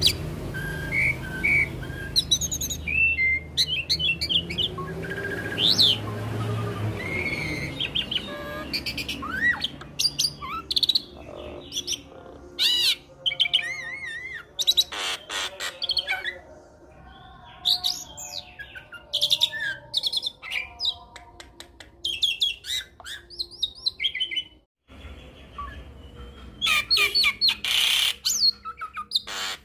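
Hybrid myna, a Nias hill myna × Asian pied starling cross, singing a long varied song of whistles, rising and falling glides, chirps and clicking rattles in full voice. The song breaks off briefly near the end, then picks up again.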